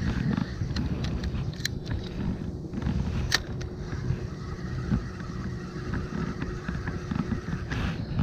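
Steady low wind rumble on the microphone while a spinning reel is cranked to retrieve the lure. A few sharp clicks come through, about a second and a half in, near the middle and near the end.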